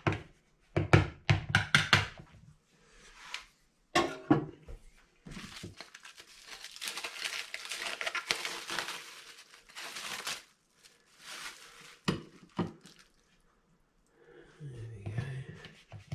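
Plastic bag crinkling and rustling for about six seconds in the middle while raw fish fillets are handled out of it, after a few sharp knocks near the start.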